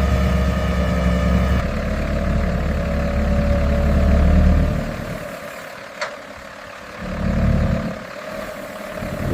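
Telehandler's diesel engine running with a heavy, steady low hum. The hum falls away about five seconds in, there is a single click a second later, and the engine swells briefly again near the end.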